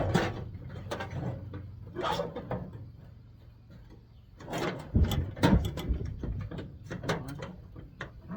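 Metal parts and hand tools knocking and clattering as a scrapped appliance is taken apart, loudest in a run of knocks about five seconds in, over a steady low hum.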